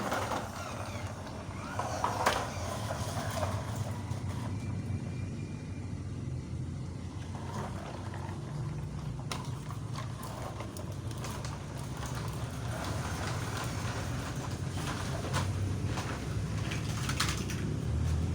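Steady low motor hum with scattered light clicks and scrapes.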